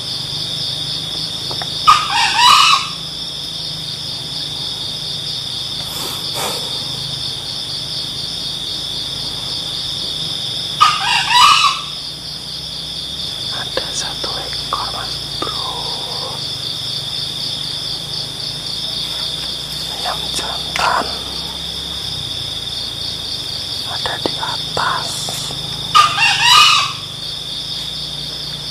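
Junglefowl rooster crowing, three short crows near the start, about ten seconds in and near the end, with fainter bird calls between. Under them runs a steady, high, pulsing insect drone.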